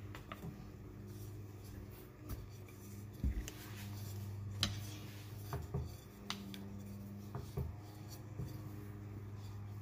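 Pizza dough being rolled out on a counter: soft rubbing and scraping with a few light knocks, over a steady low hum.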